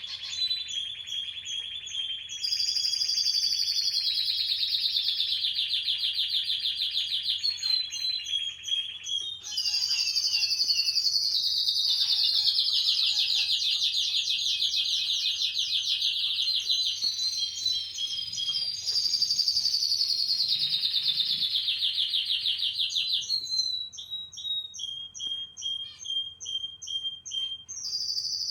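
Canary singing in long, rapid trills, each phrase several seconds long and several sliding down in pitch, with a run of separate, evenly repeated chirps near the end.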